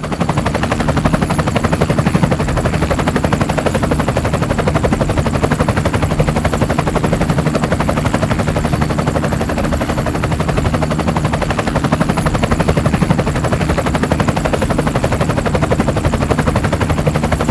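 Helicopter rotor beating at a rapid, steady rate, with a thin high whine above it.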